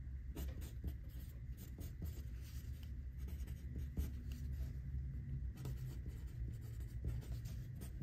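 A BIC Xtra-Strong mechanical pencil with 0.9 mm lead writing on paper: faint scratching of the lead in many quick, short strokes as a word is written out by hand.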